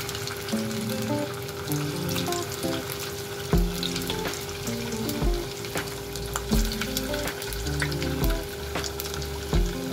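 Potato bread balls deep-frying in hot oil: a steady sizzle with small crackling pops. Background music with stepping notes plays under it, and a low beat comes in about three and a half seconds in.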